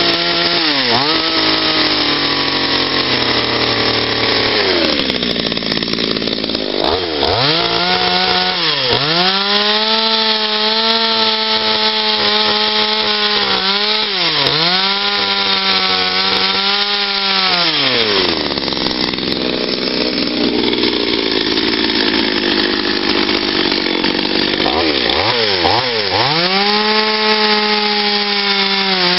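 Gasoline chainsaw carving into a wooden log, its engine running at high revs with the pitch dipping again and again as the chain bites. It drops to idle twice for a few seconds, about five seconds in and from about eighteen seconds to twenty-six, then revs back up.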